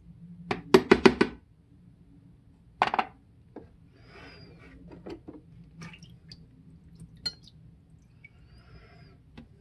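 Rusty steel parts of an old paper cutter clinking against each other and the plastic tub as they are handled in a rust-remover bath. A quick run of four or five clinks comes about half a second in and a single knock near three seconds, then soft sloshing and dripping with a few light taps.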